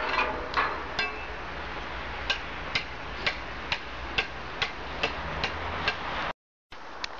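Footsteps crunching on packed snow, evenly paced at a little over two steps a second, with a few louder knocks in the first second. The sound cuts out suddenly near the end.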